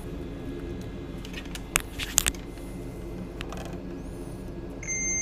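Steady low hum of bench equipment, with a few sharp clicks of tools being handled about two seconds in. Near the end a digital multimeter's continuity beep starts as the probes touch the laptop motherboard's power line: the line is still shorted.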